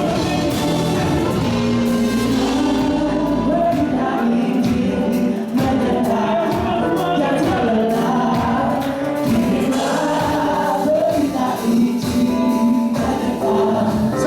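Choir singing a gospel hymn arrangement with band accompaniment, drums keeping a steady beat under the voices.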